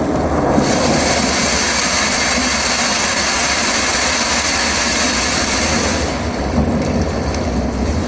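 Thunderstorm sound effect from an augmented-reality display: a steady rushing noise over a low rumble, which thins out about six seconds in.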